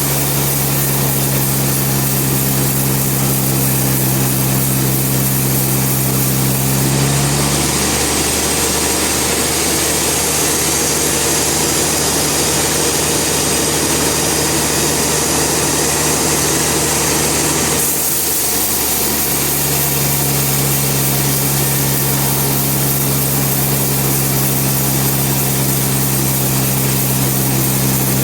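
Band sawmill running with a steady engine hum. About a third of the way in the note drops and a hiss rises for about ten seconds as the blade cuts under load, then the steady hum returns.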